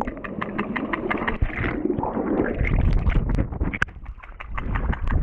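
Sound heard underwater in a swimming pool: a stream of quick bubble pops and clicks over a muffled low churning as a swimmer moves close by, heaviest in the middle.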